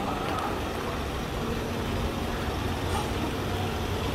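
Road traffic: a motor vehicle's engine running with a steady low drone over general street noise.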